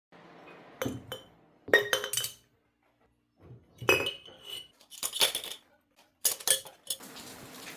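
Glass and ceramic kitchenware clinking as it is handled and set down. About six short clusters of sharp clinks come with brief ringing, separated by quiet gaps.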